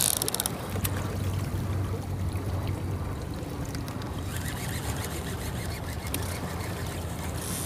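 Water lapping and trickling against a boat's hull over a steady low hum, with a burst of fast clicking in the first half second as line pays off a conventional reel on the drop.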